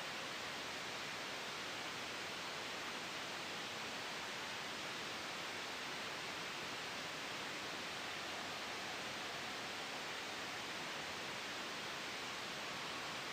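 Steady, even hiss of sleep white noise, brightest in the upper range and unchanging, with no gusts or sudden changes.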